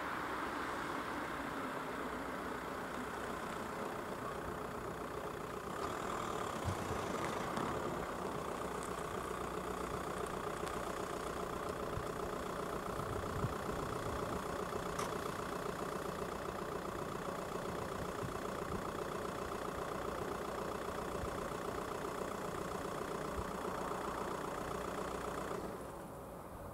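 Engine idling steadily, cutting off abruptly near the end.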